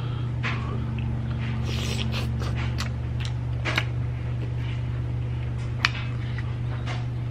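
Close-miked eating sounds: chewing with sharp wet mouth clicks and crackles, thickest in the first half and then a few single clicks, over a steady low electrical hum.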